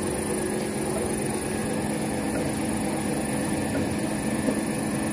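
Electric irrigation pump motor of a paddy field running with a steady hum, over a thin, steady high-pitched whine.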